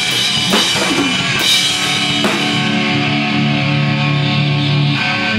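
Electric guitar and drum kit playing loud rock together. The drums land a few last strikes in the first two seconds or so, then a guitar chord is held and rings on without drums.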